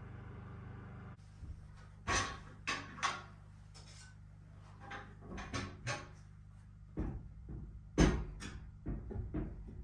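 Knocks and clunks of a small cast-iron wood stove being shifted and rocked on a hearth of red paver blocks while it is levelled: one leg needs shimming. The knocks come at irregular intervals, the loudest about eight seconds in, over a low steady hum.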